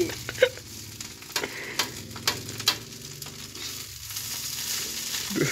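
Fried rice sizzling in a wok on a gas stove, with a utensil clicking and scraping against the pan several times as the rice is stirred.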